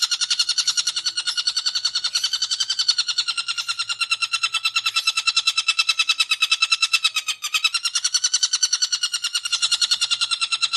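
Long-tailed shrike (cendet) in continuous rapid chattering song, about ten sharp high notes a second, breaking off only briefly about seven seconds in.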